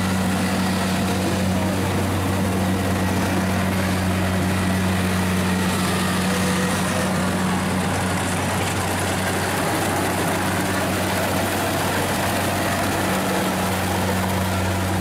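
Kubota DC-70 combine harvester running steadily while cutting rice: its diesel engine gives an unbroken low hum under a constant mechanical noise from the working machine.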